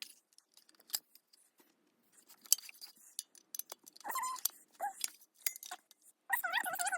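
Small metallic clicks and clinks from screws and tools as the horns of a Sterling F-2 siren are unscrewed. Short, high, wavering squeaks come in about four seconds in and again near the end.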